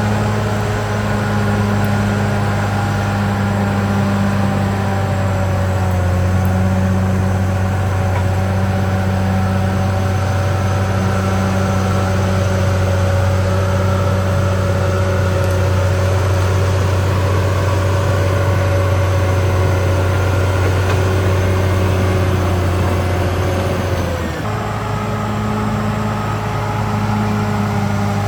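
CAT D6R XL bulldozer's diesel engine running steadily at high revs, then dropping in pitch about 24 seconds in and settling at a lower engine speed.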